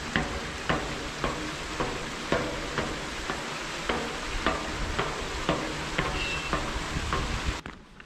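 Hiker's footsteps on a mountain trail, about two steps a second, over the steady rush of a valley stream. The stream's rush cuts off suddenly near the end, leaving only the footsteps.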